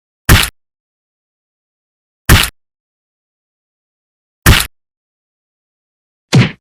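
Punch-impact sound effect, the Korean '퍽' (puck) hit: a short, sharp whack repeated four times about two seconds apart, with dead silence between.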